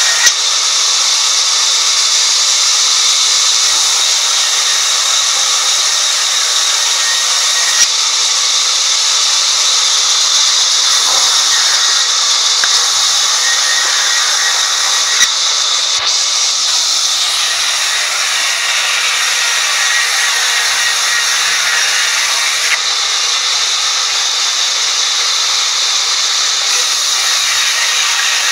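Sawmill band saw running and cutting a wooden board, a loud steady hissing whine with a few sharp clicks.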